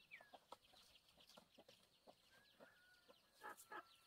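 Faint chickens clucking, with short calls scattered through, one falling call at the start and two louder calls about three and a half seconds in.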